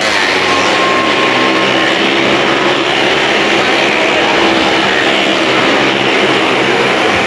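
A car and motorcycle engines running hard and steadily as they circle the vertical wooden wall of a well-of-death drum.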